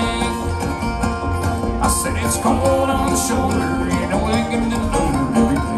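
Bluegrass band playing live: banjo, mandolin, guitar and upright bass playing together.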